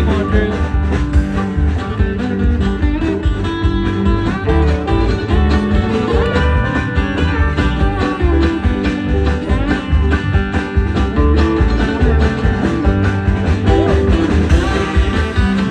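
Live acoustic string band playing an instrumental break of a bluegrass-country song: guitar strumming in a steady rhythm over a walking bass line.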